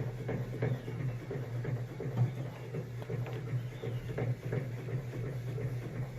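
Faint clicks and light knocks of a bandsaw's blade guard being worked by hand, over a steady low hum.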